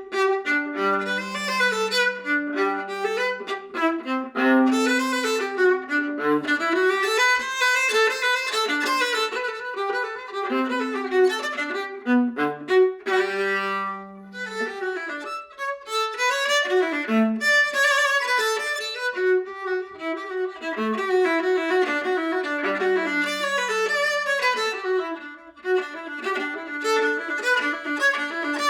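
Viola played with the bow: a flowing melody with held and moving notes that dips to low notes near the bottom of its C string.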